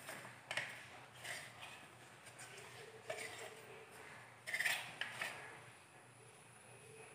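Light clinks and taps from a steel mixer-grinder jar against a bowl as powdered sugar is tipped and shaken out of it. There are about five short taps, the loudest a little after halfway.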